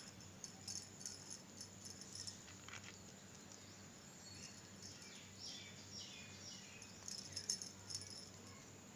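Faint, quick clicking and light jingling of beads and a crochet hook being handled while beads are threaded onto a crocheted chain, in two short clusters near the start and about seven seconds in, over a low steady hum.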